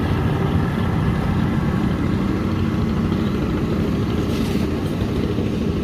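The engine of a wooden speedboat running steadily at an even speed, a loud, constant low drone.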